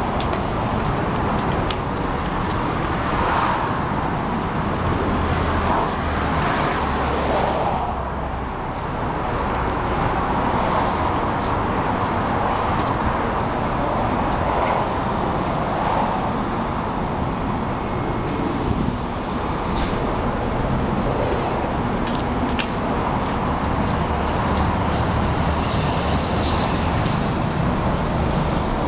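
Portland MAX light rail trains standing at a station platform: a steady hum and rumble from the trains with outdoor noise, and scattered light clicks.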